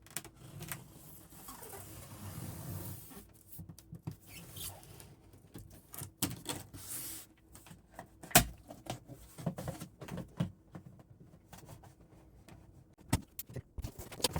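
Cardboard packaging of a large PC case being opened and handled: scraping and rustling of cardboard with scattered taps and clicks, and one sharp knock about eight seconds in.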